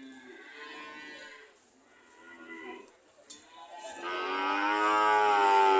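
Cows mooing: two shorter, quieter moos, then about four seconds in a long, loud moo begins.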